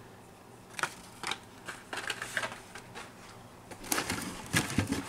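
Hot Wheels blister-carded toy cars and a cardboard case being handled: scattered light plastic clicks and rustles, coming more often in the last second or so.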